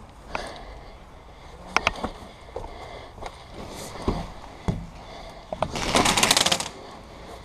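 Scattered clicks and knocks, then an airsoft gun firing a short rapid burst of just under a second about six seconds in.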